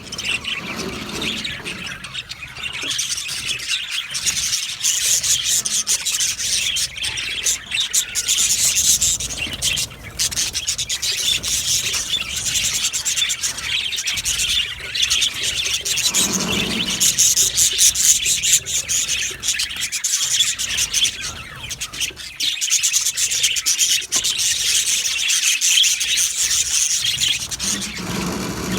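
A flock of budgerigars chattering and chirping continuously, many overlapping high warbles and tweets.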